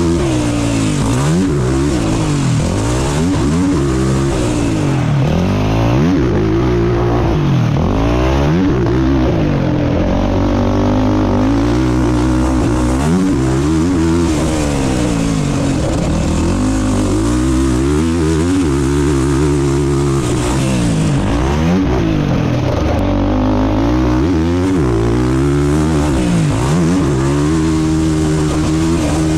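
Racing ATV engine ridden hard, revving up and dropping back over and over, its pitch climbing and falling every couple of seconds.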